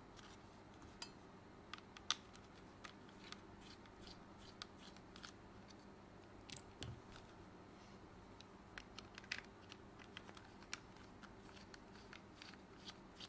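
Faint, scattered small clicks and ticks of a PS5 DualSense controller's plastic shell and parts being handled during disassembly, with one sharper click about two seconds in, over near-silent room tone with a faint steady hum.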